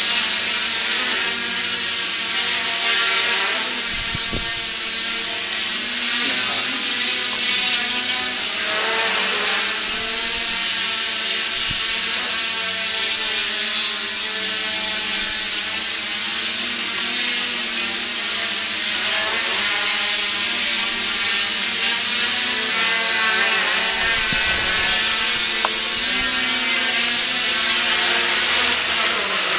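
Erle-Copter quadcopter's electric motors and propellers whirring in flight, the pitch drifting up and down as the motor speeds change, with a steady high whine on top.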